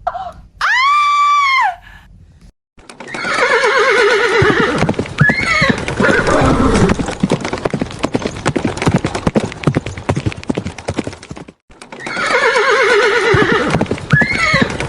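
A short tone that rises, holds and falls, then a horse neighing over fast clip-clopping hooves, the neigh-and-hooves passage starting over again near the end.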